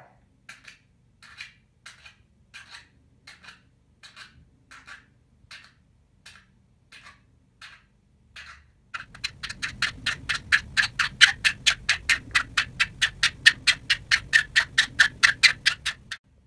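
Bed springs squeaking in a steady rhythm, the squeak of a bed being rocked. For about the first half there is one squeak every two-thirds of a second. Then the squeaks come much faster and louder, about four a second, with a low rumble beneath, and they stop just before the end.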